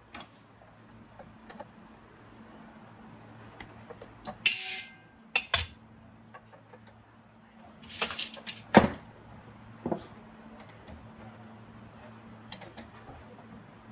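Metal tools and engine parts being handled and set down: scattered clicks and clanks, with a short metallic scrape a little before the middle and the loudest clank about two-thirds through, over a faint steady hum.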